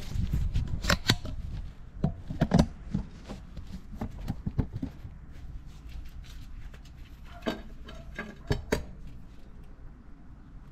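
Scattered metallic clicks and knocks from a long pry bar levering on a newly fitted lower ball joint in a Toyota Tundra's front suspension, loudest around two and a half seconds in and again around eight and a half seconds. It is a check for play in the joint, which holds solid with no play.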